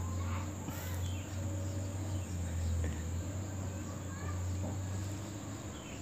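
A steady high-pitched insect trill with a few short faint chirps over a constant low hum.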